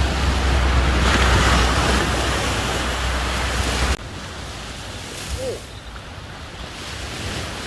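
Sea surf washing on the shore, with wind buffeting the microphone. The wind rumble cuts off suddenly about four seconds in, leaving the quieter wash of the waves.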